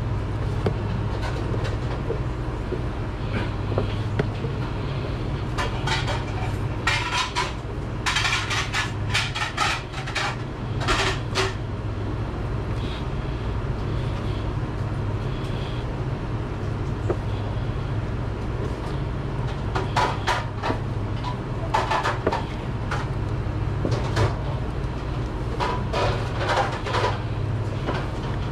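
Kitchen prep clatter: dishes and utensils knocking in two spells of quick clicks, one about six seconds in and another about twenty seconds in, over a steady low hum.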